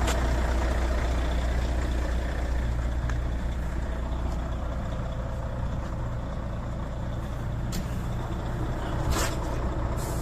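Volvo truck's diesel engine idling steadily, with a few short hisses of air near the end.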